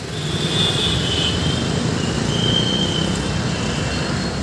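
Steady road-traffic noise of motorbikes, scooters and a lorry driving past, with engine rumble and a constant wash of tyre and engine sound.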